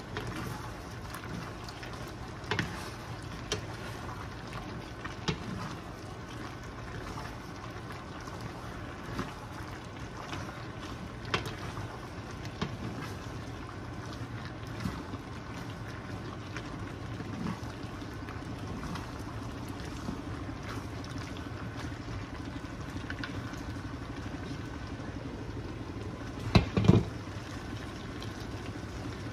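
Chopped meat being stirred in a hot frying pan with wooden spoons, over a steady hum and hiss: scattered light knocks and scrapes of the spoons against the pan, then two louder knocks close together near the end.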